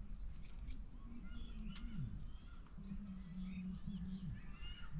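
Outdoor ambience with birds chirping in short calls throughout, over a steady high thin whine. A low tone repeatedly holds level and then slides down in pitch every second or two.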